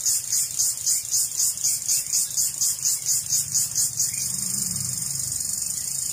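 Insects chirping high-pitched in a regular pulsing rhythm, about three pulses a second, which about four seconds in turns into a continuous high buzz.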